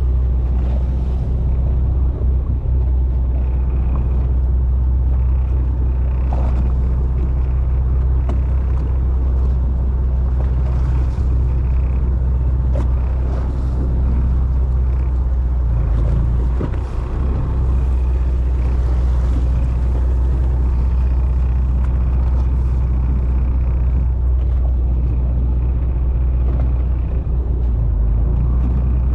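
Fishing boat's inboard engine running steadily, a constant deep hum with a faint wash of noise above it.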